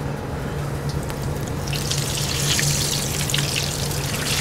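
Breaded chicken tender frying in a commercial deep fryer: the hot oil starts sizzling and bubbling a little under two seconds in, over a steady low hum.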